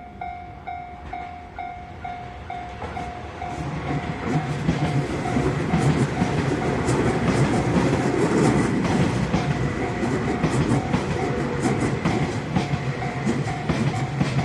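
Japanese level-crossing warning bell dinging steadily, about one and a half strikes a second. From about three and a half seconds in, a train rolls over the crossing, its wheels clacking on the rail joints, and the rumble grows louder than the bell, which keeps ringing underneath.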